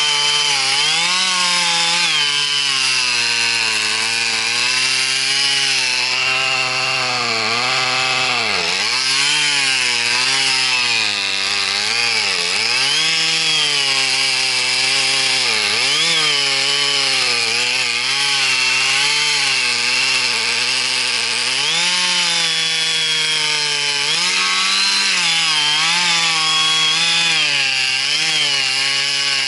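Two-stroke chainsaw running at high revs and cutting wood, its pitch wavering as the load changes. The pitch sags sharply twice, about a third of the way through, as the saw bogs down in the cut.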